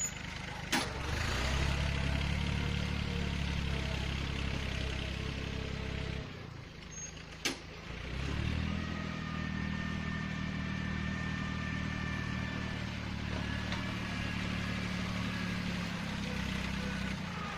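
Yanmar 1145 tractor's diesel engine running steadily while pushing dirt with its front blade. The engine drops off about six seconds in and picks up again about two seconds later. Two sharp clanks, one near the start and one during the lull.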